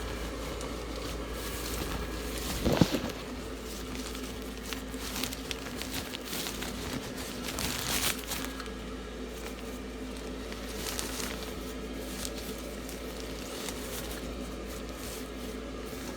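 Crinkly material being handled and rustled, with scattered clicks, a sharp knock about three seconds in and a swish near the middle, over a steady hum, likely the inflatable's blower fan running.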